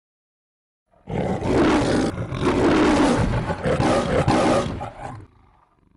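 A person roaring in imitation of the MGM lion, a rough roar in several surges lasting about four seconds. It starts abruptly about a second in and fades out near the end.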